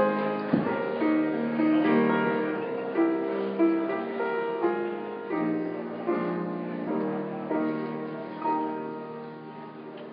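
Slow instrumental music with held chords, growing steadily quieter and dying away near the end.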